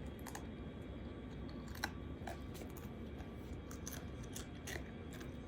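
Faint, scattered crunches and clicks of someone chewing Pringles potato crisps, over a steady low room hum.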